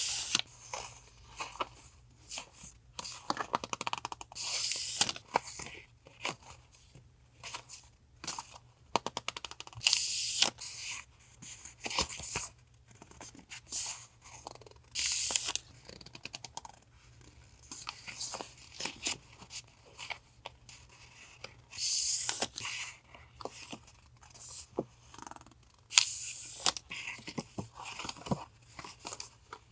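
Paper stationery and plastic packaging being handled and unwrapped: repeated short bursts of rustling and crinkling with light taps and clicks between them.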